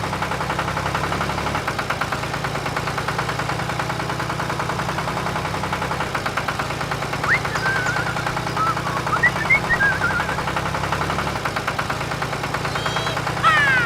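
Mini tractor engine running steadily with a rapid, even chug, with a few brief high squeaky chirps in the middle.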